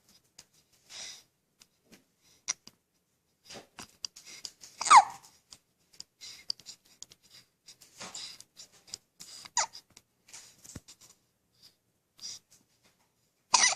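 One-week-old newborn baby hiccuping: several short, irregular hiccups with breathy snuffles between them. The loudest, about five seconds in, comes with a brief squeak that falls in pitch.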